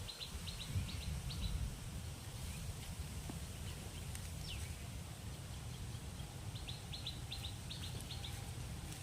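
Small birds chirping in rapid series of short high notes, one series in the first second and a half and another about two-thirds of the way through, with a single falling note between them, over a steady low rumble.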